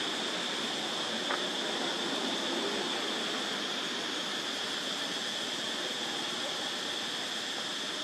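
Steady forest ambience: a constant high-pitched insect drone over an even hiss, with a single faint click about a second in.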